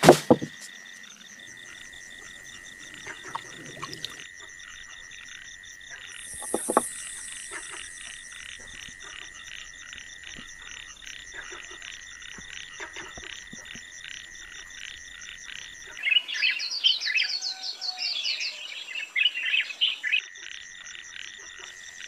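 Night chorus of insects and frogs: a steady, rapidly pulsing high trill throughout, with a louder bout of quick chirping calls for a few seconds near the end. A sharp thump right at the start and a softer one about seven seconds in.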